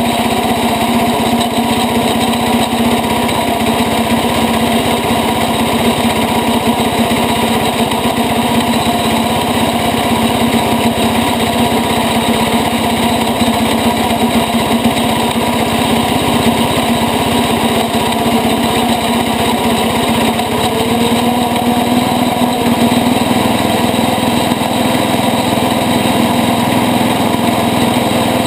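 International Cub Cadet 80 garden tractor's single-cylinder engine running steadily as the tractor drives along a dirt trail, its note rising a little about three quarters of the way through.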